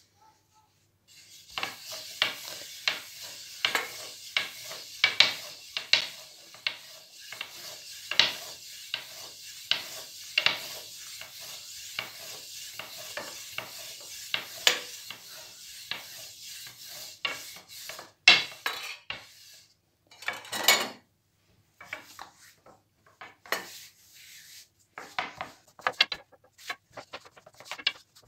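Long, thin wooden rolling pin (oklava) rolling dough out on a floured granite countertop: a steady rubbing roll with a sharp wooden knock about once a second. In the latter part the rolling turns into sparser taps and short rubs.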